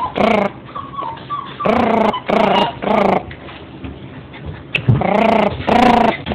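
Alaskan husky giving a run of about six short, drawn-out barks, four in the first half and two near the end. Faint high whimpers come about a second in.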